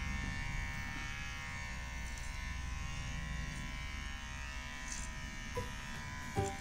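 Becko cordless low-noise pet hair clippers running with a steady electric buzz as the blade trims a dog's belly fur.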